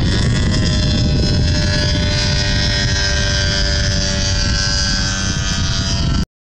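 Radio-controlled model Yak aircraft flying overhead: a steady motor-and-propeller drone with a whining pitch that dips slightly in the first half second, over wind buffeting the microphone. It cuts off abruptly near the end.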